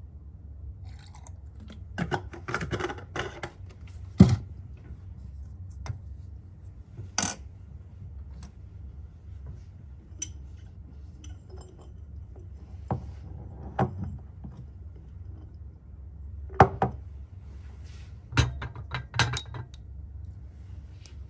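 Glass test tubes clinking and knocking against a wire test-tube rack as they are lifted and handled: scattered sharp clinks in small clusters, over a steady low hum.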